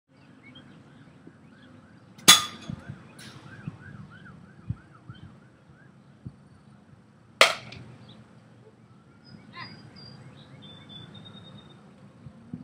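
Baseball bat striking pitched balls in batting practice: two sharp cracks with a brief ring, about five seconds apart. Faint bird calls and outdoor background in between.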